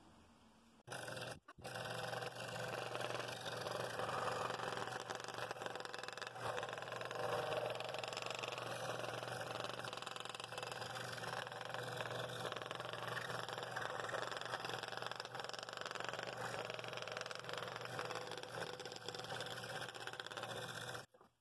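Scroll saw with a number seven blade cutting a ring out of a thick laminated wood bowl blank, running steadily. It starts about a second in, breaks off for a moment, then runs on until it stops just before the end.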